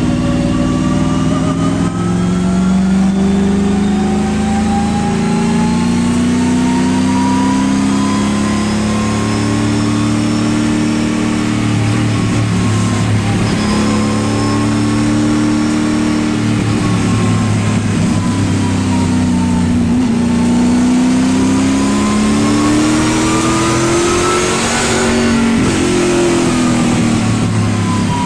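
Race car engine heard from inside the car's cabin while lapping a circuit, its pitch climbing for several seconds as the car speeds up and then dropping as it slows for corners, several times over.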